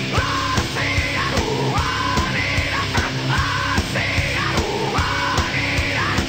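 Heavy metal song with a loud, steady drum beat under repeated shouted vocal phrases.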